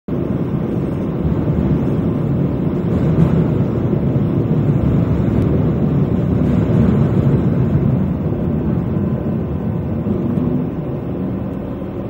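JR West KiHa 120 diesel railcar running along the line: a steady low rumble of its engine and its wheels on the rails. The rumble swells a little in the middle and then eases off toward the end.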